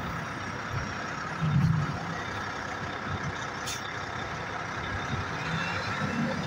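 Diesel engine of a red tri-axle dump truck running as it drives through a turn, with a louder low surge about a second and a half in.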